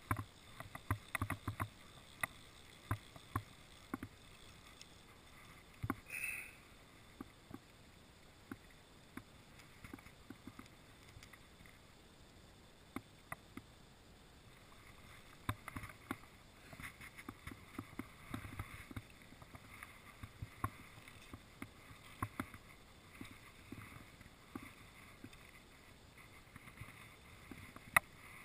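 Faint water lapping around a small boat, with scattered knocks and clicks, a cluster of them early on, and a brief high squeak about six seconds in.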